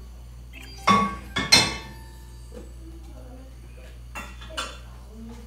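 Kitchenware clattering at the stove: two loud clanks with a brief metallic ring about a second in, then two lighter knocks near the end.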